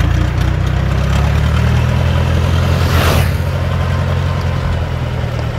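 Engine of a tracked rice-hauling machine running steadily as it carries a full load of rice sacks, easing off slightly near the end as it moves away. A brief hiss sounds about three seconds in.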